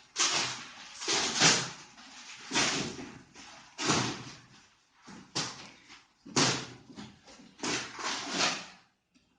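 Rough scraping and rustling strokes, about eight in a row, each under a second: a large cardboard treadmill box being handled.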